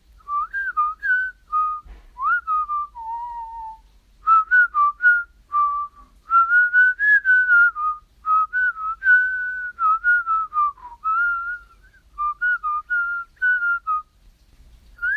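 A person whistling a tune: a string of short notes and little slides, pausing briefly a few times.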